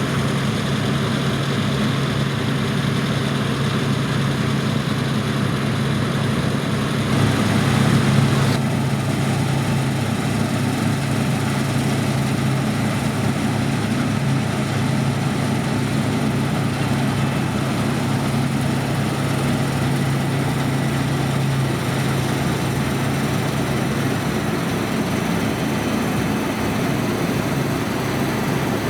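Heavy diesel harvest machinery running steadily with a deep, even hum, swelling briefly about eight seconds in.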